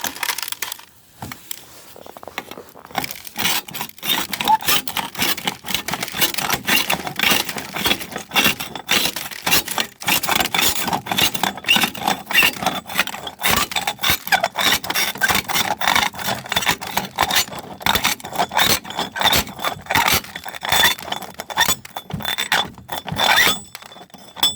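Small pieces of quartz and dark ore rock clattering, clinking and scraping in a roasting pan as they are handled and tipped in: a dense, irregular run of clinks with scrapes between them.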